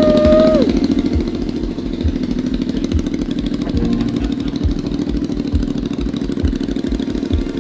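Triumph Bobber's 1200 cc parallel-twin engine idling through its freshly fabricated custom exhaust: a steady low running note with a regular low pulse. A short high tone rises, holds and falls over it in the first second.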